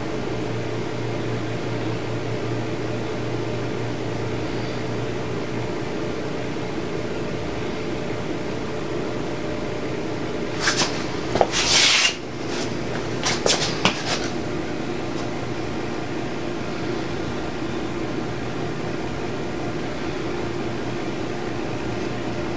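Steady whirring hum of an electric box fan. About halfway through, a short cluster of clicks, clatter and a brief scraping hiss as hand tools and small parts are handled.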